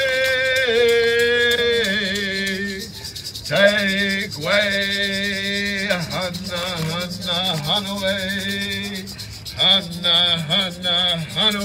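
A man singing an Indigenous Mother Earth honoring song into a microphone over loudspeakers, in long held, wavering chanted notes, with a fast, even shaking sound behind the voice.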